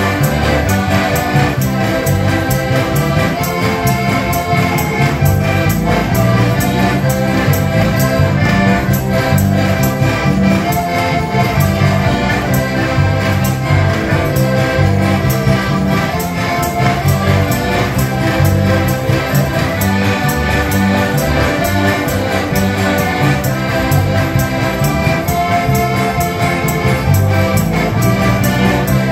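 Slovak folk band music led by diatonic button accordions (heligónky), with bass guitar and acoustic guitar keeping a steady beat.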